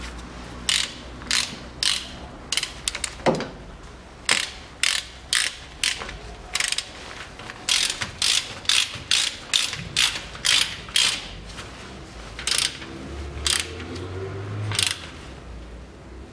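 Hand socket ratchet clicking as the filler plug is wound back into the rear axle differential after an oil change. Single sharp clicks come about a second apart at first, then a quicker run of about ten in the middle, then a few more spaced out near the end.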